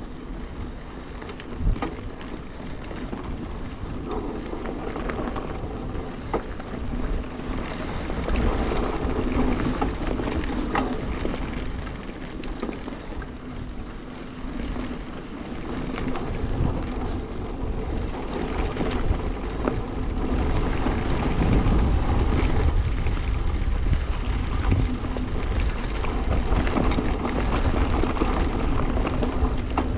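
Mountain bike rolling along a dirt forest trail: steady tyre and drivetrain noise with occasional clicks and knocks as the bike goes over bumps, under a low rumble of wind. It gets louder in the second half as the bike picks up speed.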